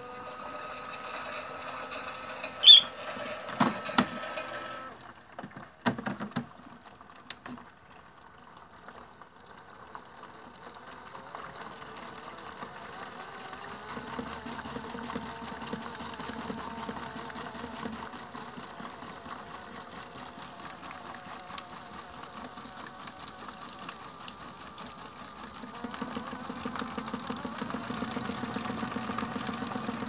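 Modified Miele W1 toy washing machine in its rinse: the small motor hums steadily with several pitches as the water-filled drum turns, with a sharp click about three seconds in. The hum stops after about five seconds, leaving a few knocks. The machine starts running again and is louder for the last few seconds.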